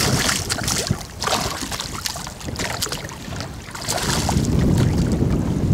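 Hooked walleye thrashing and splashing at the water's surface beside a boat as it is played in, several splashes in a row. Wind rumbles on the microphone underneath.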